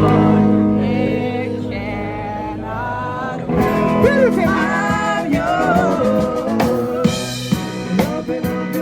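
A live band playing a pop song: a singing voice over guitar and a drum kit, the drums growing louder and busier about three and a half seconds in.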